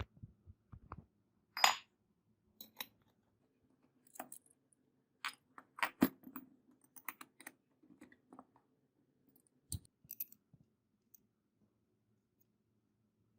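Irregular small clicks and light knocks of hard objects being handled, with louder clicks about two and six seconds in.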